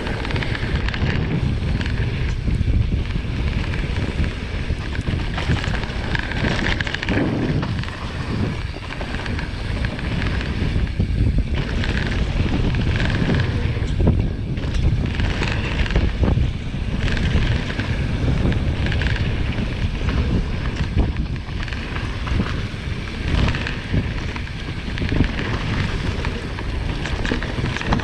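Wind buffeting the microphone of a camera riding on a Marin Alpine Trail XR mountain bike as it rolls down a dirt trail, with tyre and trail noise and scattered knocks as the bike goes over bumps.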